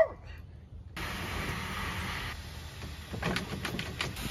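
Garden hose running water into a plastic kiddie pool: a steady hiss, with a few small splashes near the end as a small dog stands in the water.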